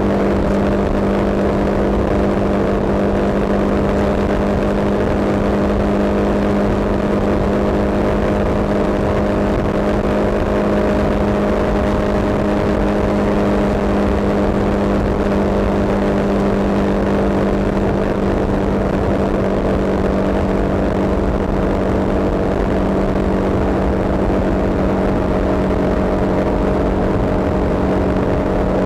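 Vehicle engine running at a steady speed with road noise: a constant hum that does not rise or fall.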